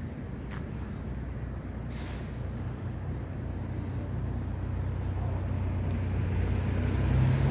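Low rumble of a heavy vehicle drawing nearer, growing steadily louder and loudest near the end.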